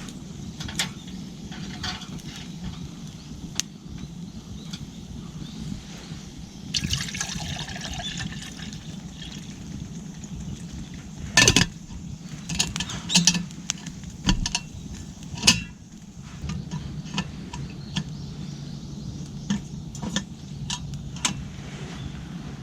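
Liquid poured and sloshing in camp cookware, with a hissy stretch about seven seconds in. Scattered sharp clinks and knocks of metal pots and cups follow, the loudest about eleven seconds in.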